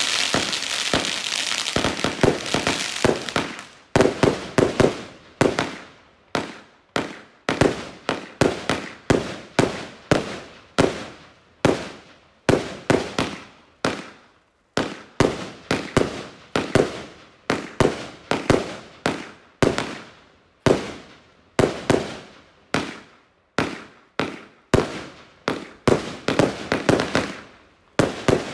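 A 25 mm firework cake (81-shot battery) being fired: about three seconds of hissing, then a long run of sharp bangs, roughly two a second, each fading quickly before the next.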